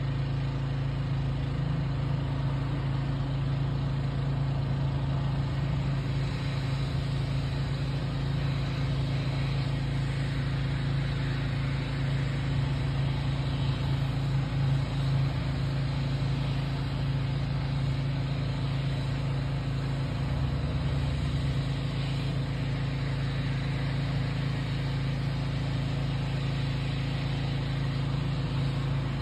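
Steady low mechanical hum of a running motor or engine, unbroken and even in level.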